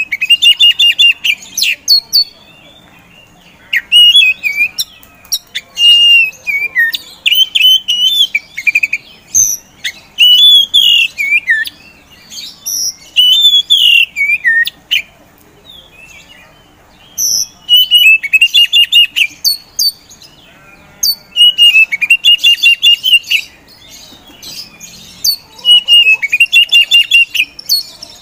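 Oriental magpie-robin (kacer poci) singing loud phrases of rapid chattering notes and whistles. Each phrase lasts a second or two, with short pauses between them.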